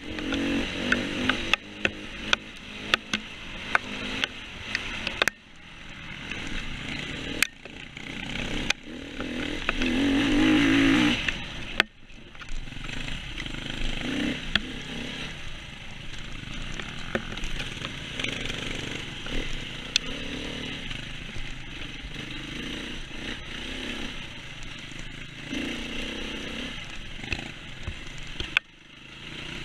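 KTM 525 EXC four-stroke single-cylinder enduro bike riding a muddy trail, the engine revving up and backing off as the throttle opens and closes, with the strongest surge about ten seconds in and sharp drops a few times. Frequent sharp clicks and knocks ride over the engine.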